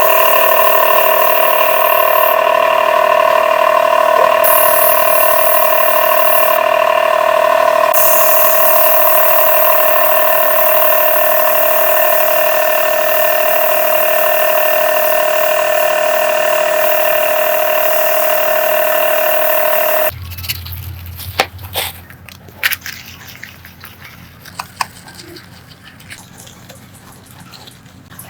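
A small electric motor running at a steady, constant high pitch, cutting off suddenly about twenty seconds in; scattered clicks and knocks of handling follow.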